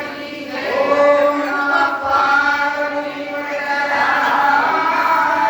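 A group of voices singing a Hindi devotional bhajan together, in long held, sliding notes.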